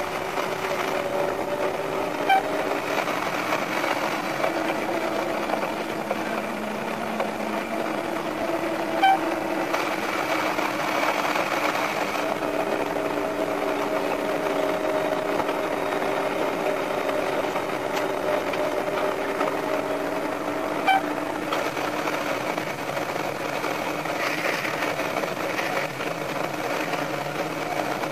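Sanriku Railway 36-200 diesel railcar running, heard from the cab: a steady mechanical drone with a faint engine hum that slowly drifts in pitch, and three brief clicks.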